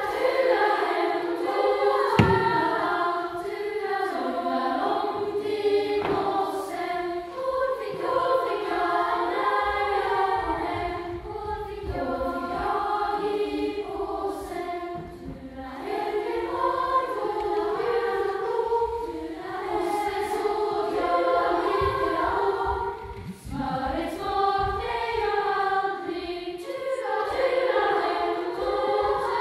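A large children's choir singing together.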